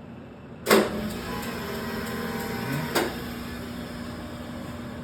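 A sharp knock, then a steady low electrical hum, with a smaller click a couple of seconds later.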